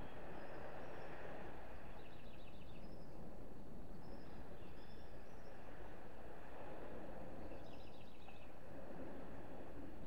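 Small waves washing onto a sand beach as a steady wash that swells twice. Small birds chirp over it, with a quick run of repeated notes about two seconds in and again near eight seconds, plus a few scattered high chirps.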